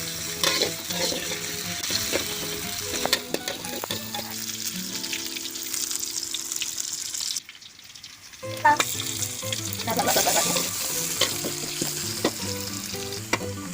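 Sliced shallots and garlic sizzling in hot oil in a pan, stirred with a spatula that clicks and scrapes against the pan. Background music plays under it, and the sound drops out briefly about halfway through.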